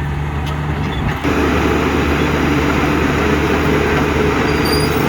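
Heavy construction machine's diesel engine running steadily. About a second in the sound changes abruptly and becomes a little louder and denser.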